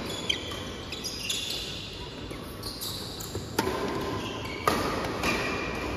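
Badminton rally: sharp racket strikes on the shuttlecock, about three of them, the clearest a second apart near the middle, with short high squeaks of shoes on the court.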